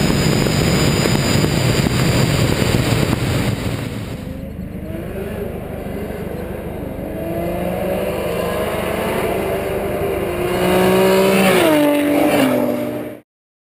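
A car engine at full throttle under heavy wind noise, recorded onboard at speed. Then a street-racing car accelerating hard toward the roadside: its engine note climbs in pitch through the gears, grows loudest and drops sharply in pitch as it goes by, then the sound cuts off abruptly.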